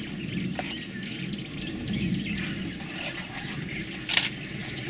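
Birds chirping intermittently in the bush over a low steady background rumble, with a single sharp crack about four seconds in.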